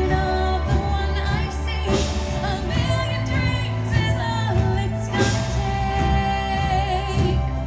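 A woman singing a Broadway show tune over an instrumental backing track, holding notes with vibrato.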